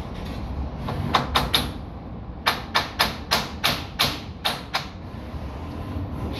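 Hammer blows knocking window framing into place: three quick strikes, then after a short pause about eight more at roughly three a second, over a steady low rumble.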